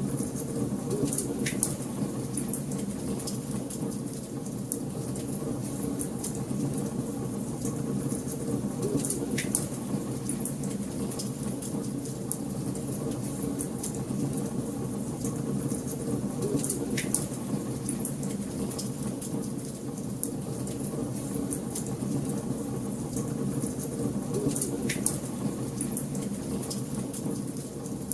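Wood fire burning in a fireplace: a steady low rush of flames with continual light crackling and a few sharper pops.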